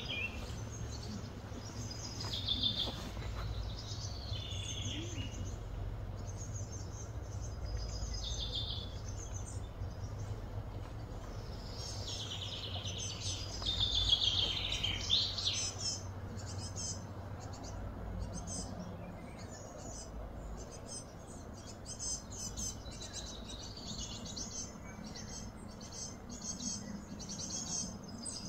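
Small birds chirping and calling again and again over a steady low hum, with a busier burst of calls about halfway through.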